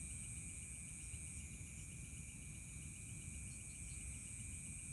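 Night insects chirping: a steady high trill and a rapid, evenly pulsed chirp, over a low rumble.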